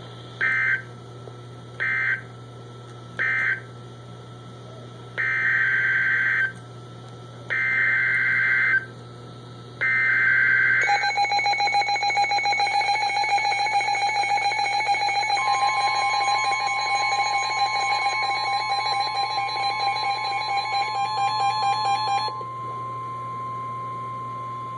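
NOAA Weather Radio Emergency Alert System tones. Three short data chirps (the end-of-message code closing the tornado warning) come first, then three longer data bursts (the SAME header of the next alert). Then the two-tone attention signal sounds as a steady alarm for about eleven seconds and cuts off sharply, with another steady tone joining partway through and lingering after it.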